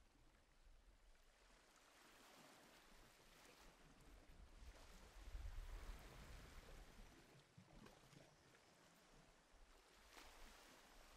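Near silence: a faint, even wash of background noise that swells slightly about five seconds in.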